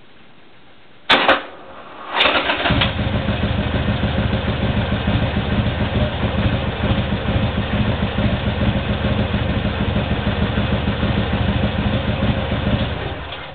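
Harley-Davidson Sportster 1200 Custom's air-cooled V-twin being started on a bike described as hard-starting. Two sharp clacks come about a second in, then the starter cranks briefly and the engine catches and idles steadily for about ten seconds before dying away near the end.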